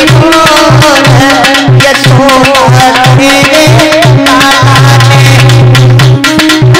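Devotional Krishna bhajan music: a tabla-style hand drum keeps a steady beat of about two strokes a second under an ornamented melody.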